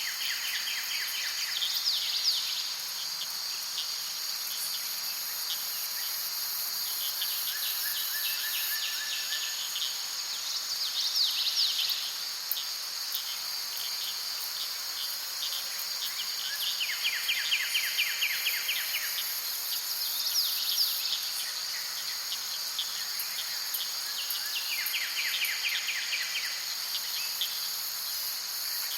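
Insect chorus, a steady high-pitched drone, with short rapid trills and quick sweeping calls coming back about every eight to nine seconds.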